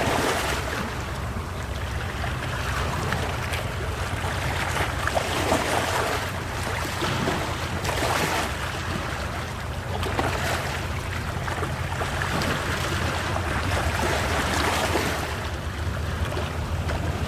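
Sea waves washing ashore, swelling and fading every few seconds, with wind buffeting the microphone.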